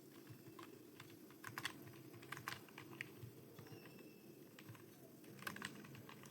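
Computer keyboard keys being typed on for a Hindi typing test: faint, irregular clicks, some coming in quick runs of several keystrokes, over a low steady background hum.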